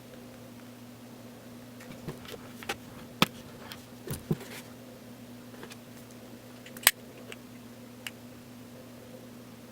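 Scattered sharp clicks and taps, the two loudest about three seconds in and just before seven seconds, over a steady low hum.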